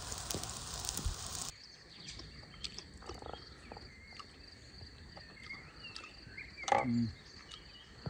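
Whole fish roasting on a spit over a wood fire, a steady sizzling hiss that cuts off about one and a half seconds in. Then a table-side meal: light clicks of plates and cutlery over a steady high insect buzz, with a short vocal sound from one of the diners near the end.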